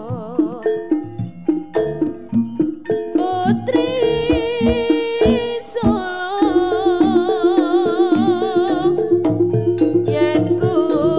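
East Javanese jaranan gamelan music: rapid drum strokes under a held melody line that wavers with wide vibrato.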